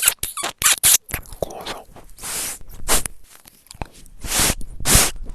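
Loud crackling and crunching noise made right against a microphone: a quick run of sharp bursts in the first second, then longer hissing rushes about two seconds in and again near the end.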